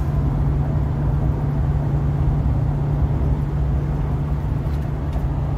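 Steady road noise inside a car's cabin while driving at highway speed, with a low steady hum.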